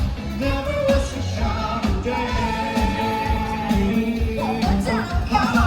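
Music with a voice singing long held notes over a steady beat.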